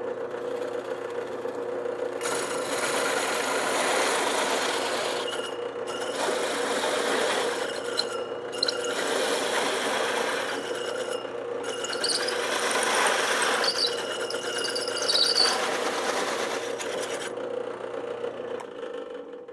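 Drill press spinning a hole saw through plywood: a steady motor hum, and from about two seconds in the rasping of the saw teeth cutting. The rasping eases off briefly three times and stops near the end.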